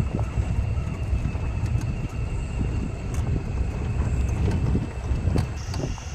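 A vehicle driving along a rough dirt forest track: steady low engine and road rumble with scattered knocks and rattles from the bumpy ground. Crickets shrill steadily underneath, and a second, higher insect note joins near the end.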